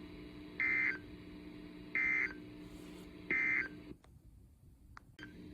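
Three short, identical bursts of warbling digital data tones, the SAME End-of-Message code that closes a weather radio alert, about a second apart over a steady low hum. About four seconds in the audio drops out, broken by a couple of clicks.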